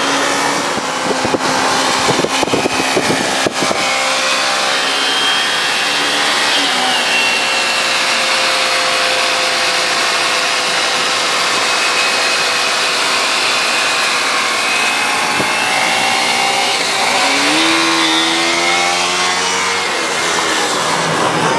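Kawasaki Ninja 300's parallel-twin engine running under way, dropping in pitch near the start, holding steady, then rising again near the end as it accelerates. Tyre and wind hiss on a wet road runs beneath it.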